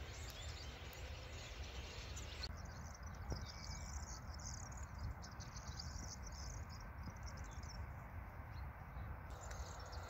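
Faint high chirping and twittering of a flock of small birds over a low, steady outdoor rumble. The chirping starts abruptly about two and a half seconds in and stops just as suddenly near the end.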